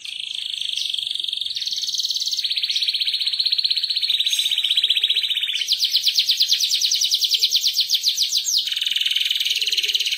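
Domestic canary singing a long, unbroken rolling song: a continuous chain of rapid trills that switches from one trill to the next every second or two, with a faster, higher trill for about three seconds in the middle.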